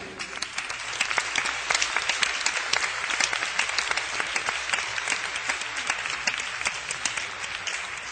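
Concert audience applauding just after a song ends, a dense, steady patter of many hands that eases slightly near the end, taped from within the crowd on cassette.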